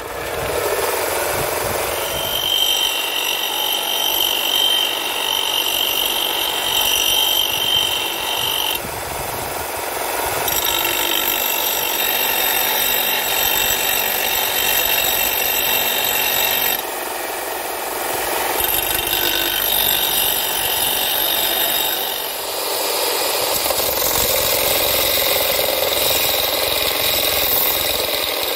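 Electric bench grinder running, its abrasive wheel and then its sanding belt grinding the rusty steel of an old pickaxe head: a steady motor whine with the hiss of steel on abrasive, changing in pitch and strength several times as the work is pressed on and moved.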